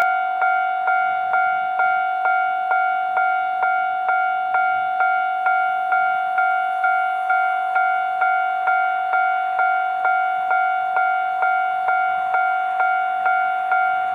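Railway level crossing warning bell ringing steadily, a clanging tone repeated about twice a second: the crossing is signalling an approaching train.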